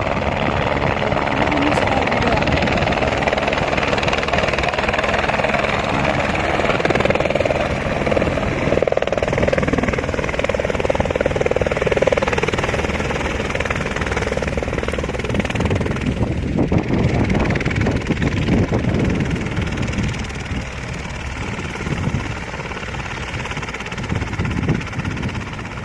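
Helicopter engine and rotor running steadily, somewhat quieter and more uneven in the second half.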